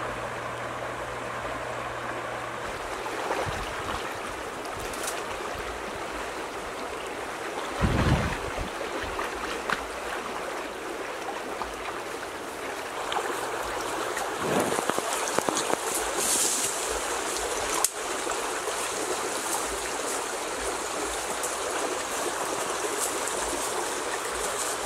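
Water of a shallow stream running steadily, with two dull thumps, about a third of the way in and just past halfway, and a brighter hiss joining in the second half.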